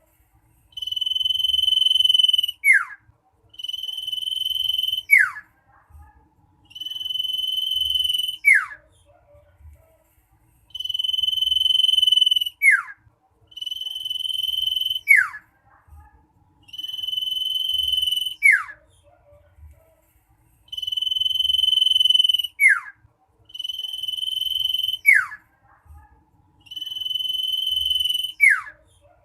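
Common iora (cipoh) singing: a long, loud, steady whistle that ends in a quick downward sweep, repeated about nine times with short pauses between.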